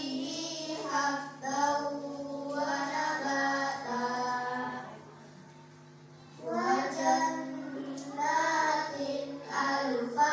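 A group of children chanting together in unison in a melodic, drawn-out style. They pause for about a second and a half about five seconds in, then go on.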